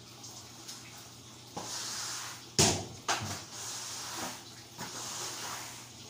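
Cleaning noises in a small tiled room: a loud, sharp knock about two and a half seconds in and a lighter one half a second later, amid stretches of swishing.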